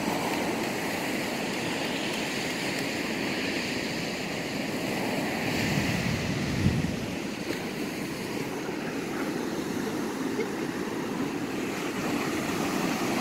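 Ocean surf breaking and washing up the beach, a steady rushing, with wind on the microphone and one brief thump a little past the middle.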